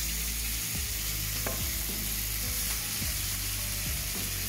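Cuttlefish sizzling on a hot griddle, a steady frying hiss.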